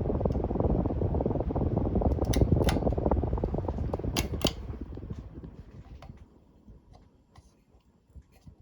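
Casablanca Lady Delta ceiling fan running, with a loud, even rush of air from its blades and a few sharp clicks. About five seconds in, the rush fades away over a couple of seconds to near quiet.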